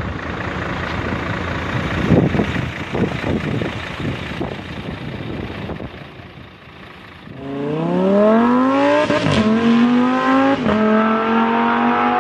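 Wind buffeting the microphone for about six seconds, then an engine revving hard. Its pitch climbs, drops back twice and holds, like a race car accelerating up through the gears.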